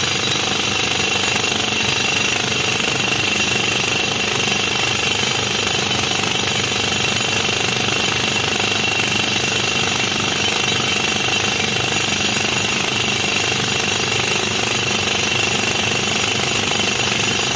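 JCB JS215 tracked excavator running and working at steady load, a loud unbroken machine noise with a thin high whine over it.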